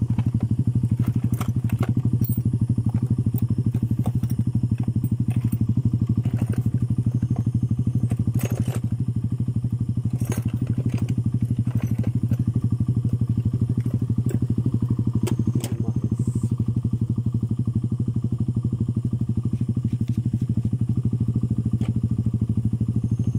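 Motorcycle engine idling steadily, with occasional light clicks and knocks over it.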